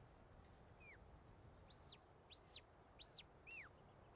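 Faint sheepdog handler's whistle commands to the working dog: a short falling note about a second in, then three quick high notes that each rise and fall, and a lower falling note near the end.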